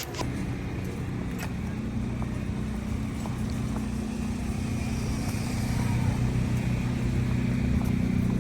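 Car engine running with a steady low hum, growing a little louder about halfway through.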